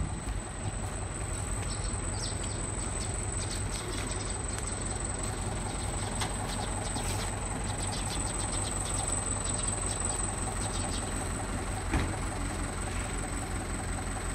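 Robin PR200 mini tiller's 2 hp engine running steadily with the machine standing still, with one brief knock near the end.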